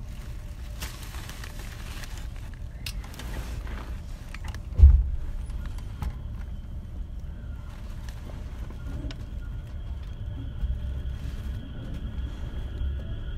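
Station platform noise beside a stopped express train: a steady low rumble, one heavy thump about five seconds in, and from then on a faint steady high-pitched tone.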